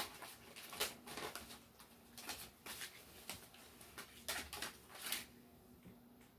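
A deck of oracle cards being shuffled and handled by hand: a run of soft, irregular card riffles and taps that stops about five seconds in.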